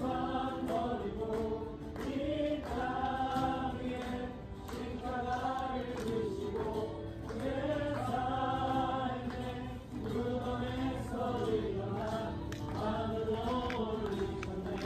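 Music with singing: long, wavering sung phrases over a steady low drone.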